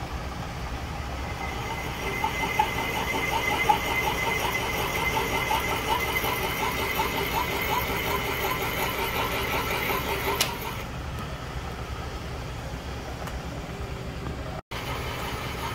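Milling machine spindle running while a boring bar takes a heavier cut in the steel small end of a Mopar 440 connecting rod. From about two seconds in the cut adds a high-pitched whine with a warbling tone beneath it, which cuts off suddenly about ten seconds in, leaving the machine's steady hum.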